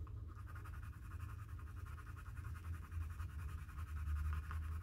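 Castle Arts colored pencil shading a swatch square on paper with rapid, even back-and-forth strokes, a steady scratching, over a steady low hum.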